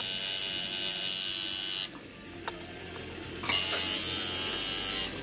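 Tattoo machine buzzing steadily as its needle works ink into the skin, stopping about two seconds in and starting again about a second and a half later before stopping near the end.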